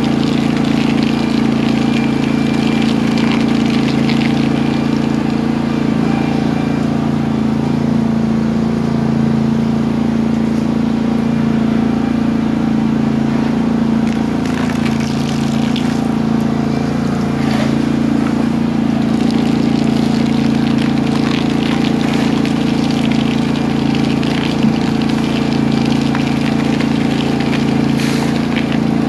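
Ride-on floor scraper's motor running steadily, with intermittent crackling as its blade breaks white floor tiles up off the concrete.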